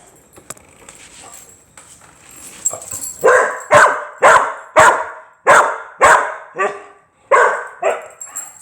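Pet dog barking: a run of about nine short barks, roughly two a second, starting about three seconds in.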